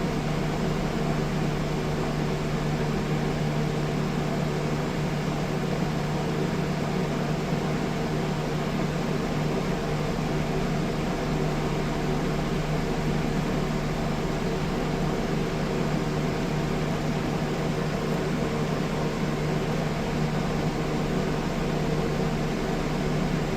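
Steady mechanical hum with a low drone, like a fan or air-conditioning unit running, unchanging throughout.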